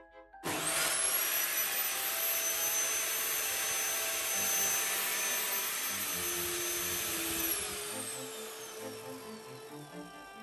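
Bossman BTSS-210 table saw's 1800 W motor started with no load about half a second in, whining quickly up to speed and running steadily. About seven and a half seconds in its whine begins to fall in pitch as the blade winds down.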